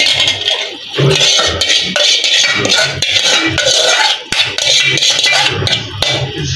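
Chicken and vegetables sizzling in a frying pan as sauce is poured in and stirred, with a metal ladle clinking against the pan.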